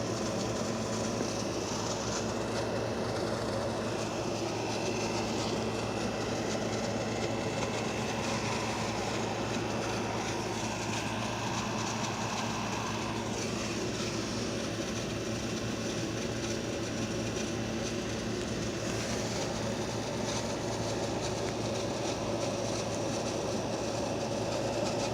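Steady mechanical running noise with a constant low hum and a faint steady whine, unchanged in level throughout.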